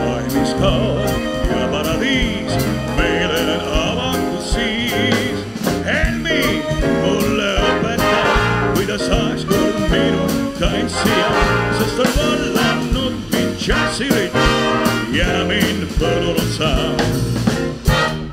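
Big band playing swing live, with brass, saxophones and rhythm section over a steady drum beat. The tune stops on a final hit near the end.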